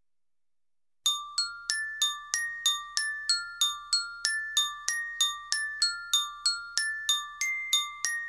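Music: a high, bell-like melody on mallet percussion such as a glockenspiel, struck notes about three a second, each ringing briefly. It starts about a second in after silence.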